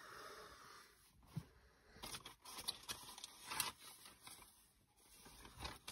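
Faint rustling and light knocks of objects being handled, in short scattered bursts.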